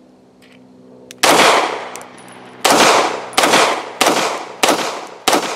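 Beretta M9A4 9 mm pistol fired six times. The first shot comes about a second in, then five more at a steady pace of roughly one every two-thirds of a second, each with a short echoing tail.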